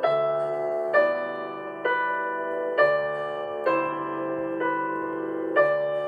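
Background piano music: slow notes or chords struck about once a second, each ringing on until the next.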